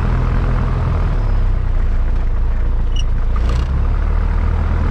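Light aircraft's piston engine idling on the ground, heard inside the cockpit; its note changes slightly about a second in as the throttle is adjusted.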